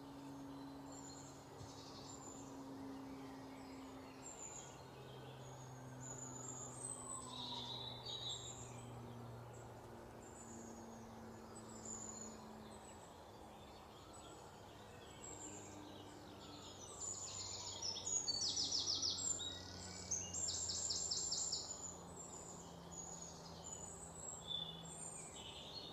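Birds chirping in short high calls. About two-thirds of the way through come several rapid trills of evenly pulsed notes, the loudest sound. A faint low hum lies underneath.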